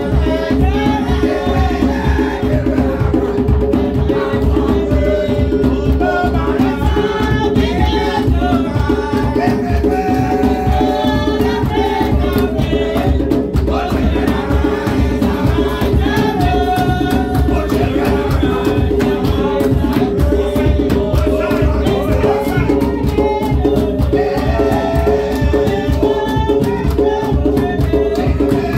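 Church music: voices singing a melody over shakers and hand percussion keeping a fast, steady beat, with a sustained low tone underneath.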